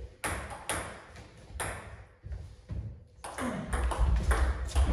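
Table tennis ball clicking: a few separate bounces, a lull, then a rally starting with quick strikes off the bats and table. Low thuds of feet on the wooden floor run under the rally.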